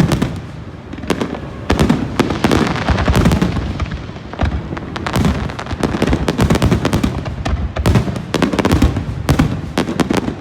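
Fireworks going off in quick succession: a dense string of sharp bangs and crackles, several a second, with loudness rising and falling.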